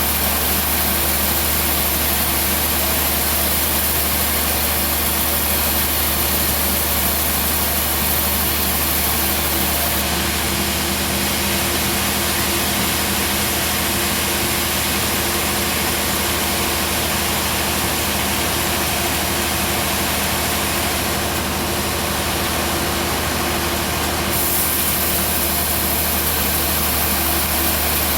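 Band sawmill running steadily: a constant low machine hum with a hiss above it, the hiss shifting a little about ten seconds in and again a few seconds before the end.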